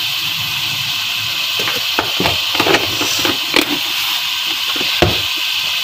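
Tomato-and-yogurt masala frying in a pot with a steady sizzling hiss, with a few light clicks scattered through.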